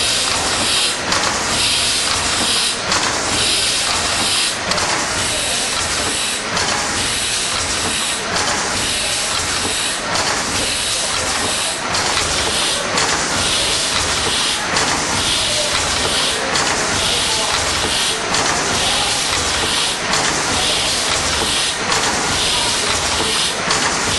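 Bratch steam pumping engine running, its steam hissing in even pulses about once a second.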